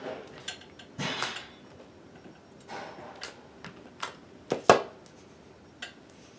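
Handling noises from a clear acrylic stamp block and a rubbery TPU stamp being worked on a sheet of paper over a table: scattered clicks and knocks, with a short paper rustle about a second in. The loudest is a sharp double knock about four and a half seconds in, as the acrylic block is set down.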